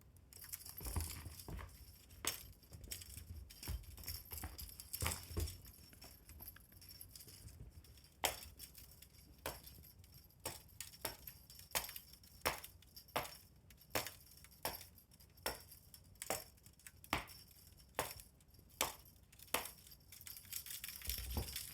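A cat fishing-rod teaser toy being played with: a run of light clinks and knocks, one or two a second, coming more regularly from about eight seconds in.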